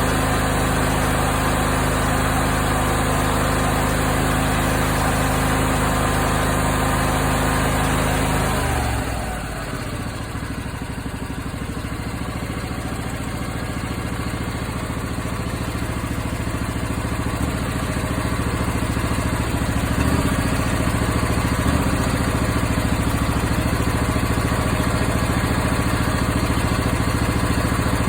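Briggs & Stratton 20 hp V-twin engine running fast, then throttled down about nine seconds in and settling to a lumpy idle, with a few sharp pops from the exhaust later on. The popping is the sign of valve clearance out of adjustment, which a valve lash adjustment cured.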